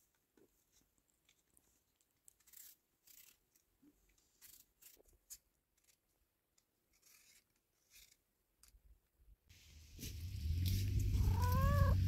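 Faint, scattered scraping strokes of a hand peeler taking the skin off apples. About ten seconds in, a loud low rumble begins, and near the end a cat meows once, the pitch rising and then falling.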